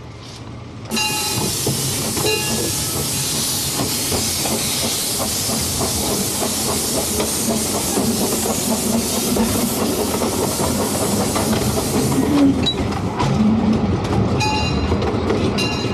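Steam locomotive letting off a loud hiss of steam that starts suddenly about a second in and cuts off near the twelve-second mark, over the steady clatter and rumble of the train's wheels on the track.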